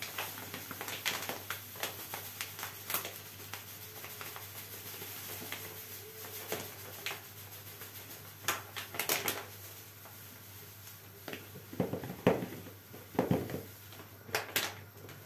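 Dry granules poured from a crinkling plastic bag into a plastic storage canister: a low, steady rustle with scattered small clicks. A few louder rustles and knocks near the end.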